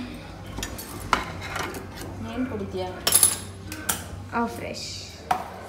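Stainless steel tumblers and utensils clinking and knocking on a kitchen counter: several sharp metallic clinks, the loudest a ringing clatter about three seconds in.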